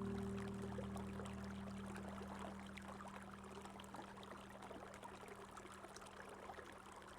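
Running water flowing steadily, a fine, crackling rush. Under it, a held low music chord fades away over the first few seconds.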